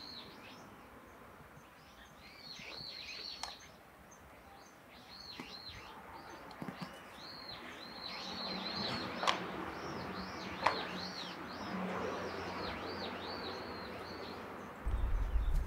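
Small birds chirping over and over, short high notes repeating through the whole stretch. Two sharp clicks come in the middle, and a loud low rumble starts near the end.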